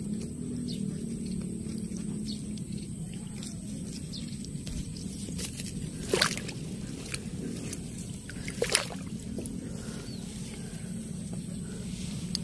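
Wading through shallow water and grass: soft, steady sloshing, with two brief, sharper noises about six and nine seconds in.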